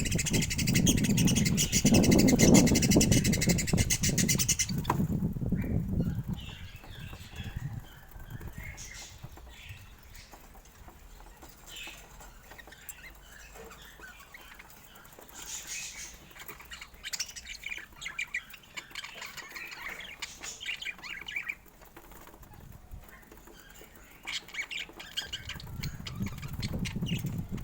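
Budgerigars chirping and chattering, with loud wing flapping for about the first five seconds. After that only softer, scattered chirps remain.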